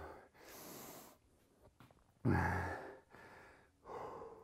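A man breathing hard to recover after an exhausting set of leg exercise. There is a breath in early on, then a loud voiced exhale falling in pitch about two seconds in, and another heavy breath near the end.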